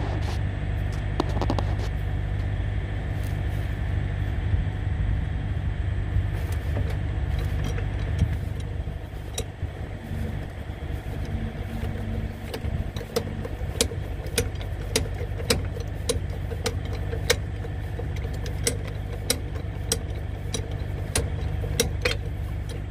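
Hand-cranked torque-multiplier lug wrench working a tight semi-trailer lug nut, clicking sharply about twice a second from around nine seconds in. An engine idles steadily underneath throughout.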